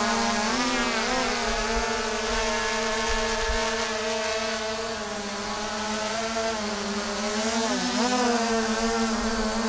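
Steady engine-like hum on one held pitch with many overtones. The pitch wavers briefly about half a second in and again near the end.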